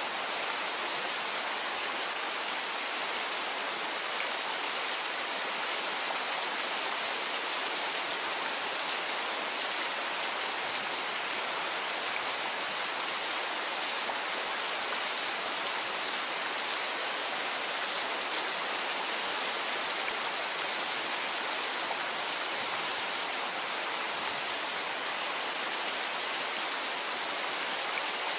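Steady rain falling: an even hiss with no single drops or thunder standing out.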